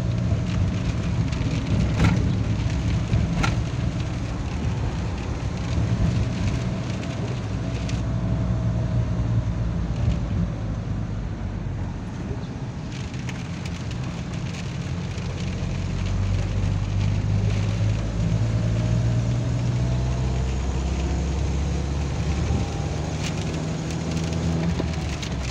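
Inside a moving car's cabin: a steady low engine hum under road noise from tyres on a wet road. A couple of sharp clicks sound a few seconds in.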